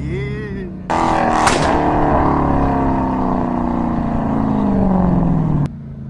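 Dodge Hellcat's supercharged 6.2-litre HEMI V8 going to full throttle about a second in, with a sharp crack near the start of the run. It is held loud for about five seconds and then cut off abruptly as the throttle is lifted.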